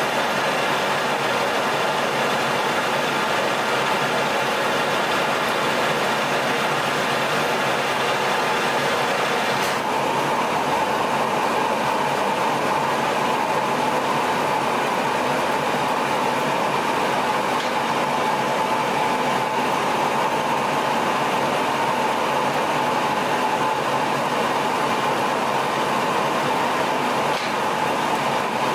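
Metal lathe running steadily while a threading insert cuts threads into a 4140 steel shaft. About ten seconds in, a steady whine comes in and holds.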